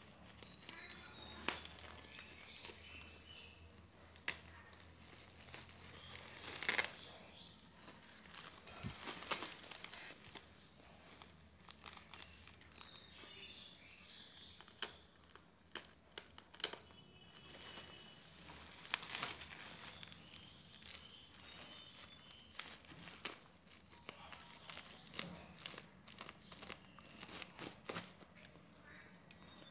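Plastic bubble wrap crinkling and rustling as it is cut open with a utility knife and peeled back, with many scattered sharp crackles.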